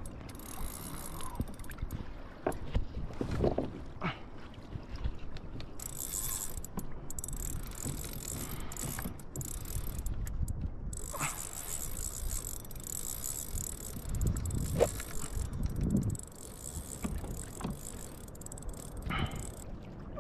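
Water slapping against a fishing kayak's hull, with wind on the microphone and a knock now and then.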